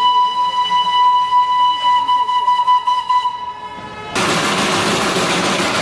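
Darjeeling Himalayan Railway B-class steam locomotive's whistle sounding one long, steady high note that dies away about three and a half seconds in. About half a second later a loud, steady rushing noise sets in.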